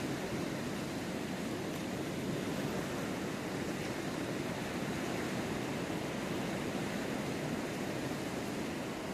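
Steady, even rushing wash of ocean surf with no distinct breaks or events.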